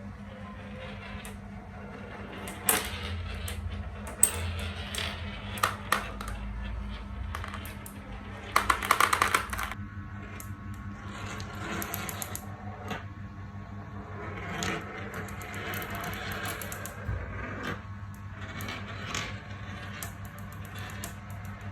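Marbles rolling and clicking along a marble run, with scattered sharp clacks and a quick rattle of many clicks about nine seconds in.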